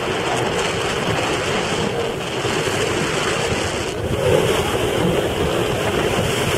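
Strong wind blowing across the microphone over the rush of rough, choppy sea and the bow waves of sailing yachts under way. A steady, loud noise, swelling slightly about four seconds in.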